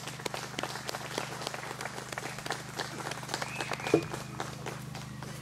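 An audience applauding, a dense patter of individual claps that thins out near the end, over a steady low hum.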